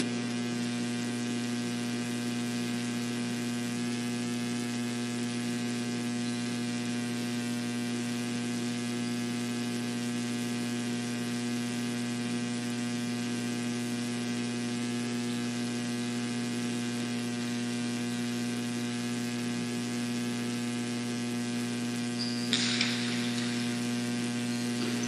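Steady low electrical mains hum with a buzzy stack of overtones, unchanging throughout. Near the end a brief sharp noise cuts in over it for about half a second.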